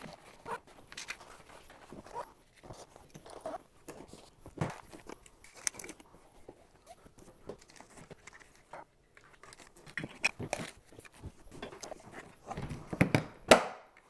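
Rapid clatter and rustle of camera gear being handled and packed into padded dividers of an SKB iSeries hard case, a dense run of small clicks and knocks, then louder knocks near the end as the case lid swings shut.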